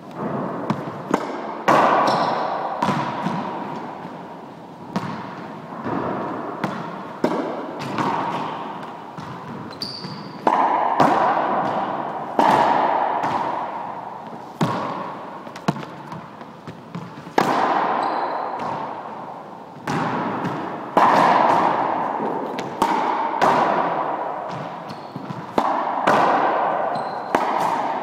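Squash ball struck by a racket and rebounding off the walls and wooden floor of a squash court: a sharp crack every second or two, each followed by a long ringing echo of the court, with lighter knocks between.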